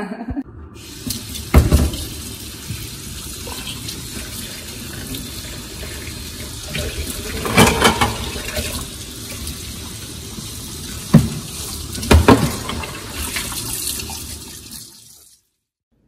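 Water running from a kitchen tap into the sink, a steady rush with a few sharp knocks over it. It cuts off abruptly near the end.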